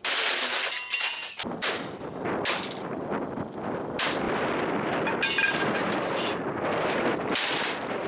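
A desktop computer tower being smashed with a long-handled hammer: a run of loud crashing blows on its metal and plastic case, about one a second, with rattling and clattering between them as parts break loose.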